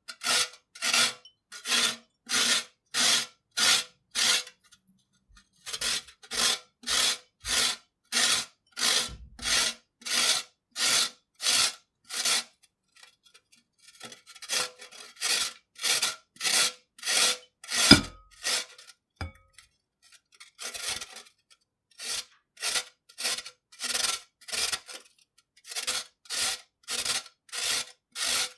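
Carrot grated by hand on a grater: rhythmic rasping strokes about two a second, in runs broken by short pauses, with one sharp knock about two thirds of the way through.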